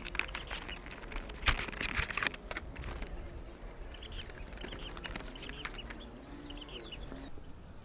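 Sharp plastic clicks and knocks from toy guns being handled over the first few seconds, then faint short chirps in the background.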